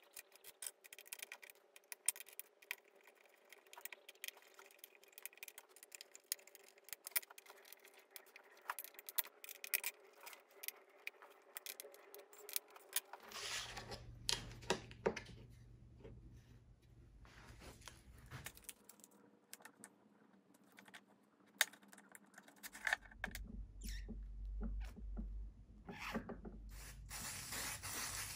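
Small metal parts and tools clicking and scraping as they are handled: screws and hardware for fitting the router plate and brackets. Near the end comes a short hiss of an aerosol spray can.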